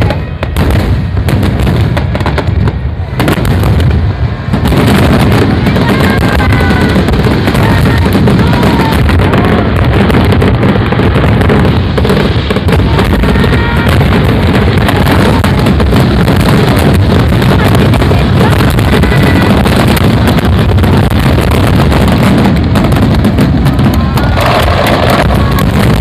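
Fireworks going off in a dense, continuous barrage of bangs and crackles, sparser for the first few seconds and then packed tight and very loud.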